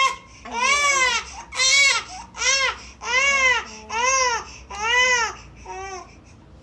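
Young infant crying hard: a run of about seven loud wails, each around half a second long and rising then falling in pitch, with short breaths between them, the last cry weaker near the end.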